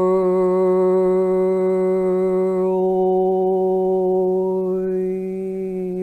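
A woman's voice toning one long, steady low note without words, as in light-language channelling. The vowel colour shifts slightly partway through.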